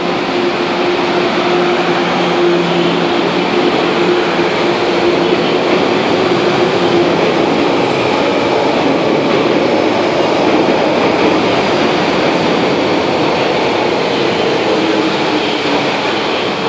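MTR Kwun Tong Line M-Train electric multiple unit passing through the station at speed without stopping: a steady, loud rush of wheels and running gear, with a steady hum that fades about halfway through.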